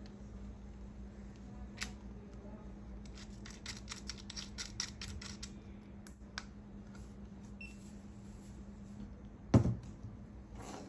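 Handling of a handheld battery internal-resistance tester: scattered light clicks, including a quick run of them, then a short electronic beep from the tester. About a second before the end comes a single heavy thump as a small sealed lead-acid battery is set down on a wooden table.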